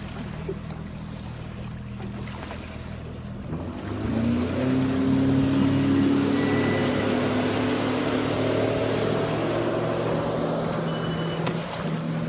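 Boat outboard motor running low and steady, then throttled up about four seconds in, its pitch rising and levelling off as the boat gets up on plane, with water and wind rushing past.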